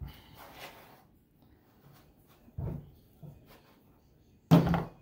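Handling sounds as a comb works through a small puppy's tail fur, with no clippers running: light rustling, then a couple of short knocks, the loudest near the end.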